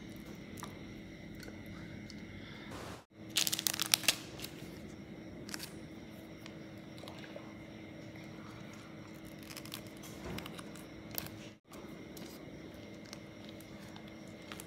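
Plastic sauce sachet torn open: a short crinkly rip about three seconds in, then occasional soft rustles and taps over a faint steady hum.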